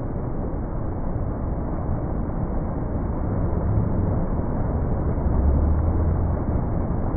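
Steady roar of rushing water from a waterfall, heavy in the low end, swelling a little louder about five seconds in.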